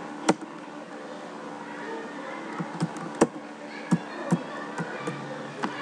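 Computer keyboard keystrokes: scattered sharp clicks, several close together in the middle, over a steady background hum.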